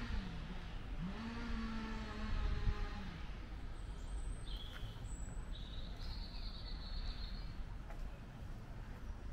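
Outdoor ambience with a steady low rumble. A pitched droning tone is held twice in the first three seconds, each time sliding down in pitch at its end. Thin, high bird calls follow from about four to seven seconds in.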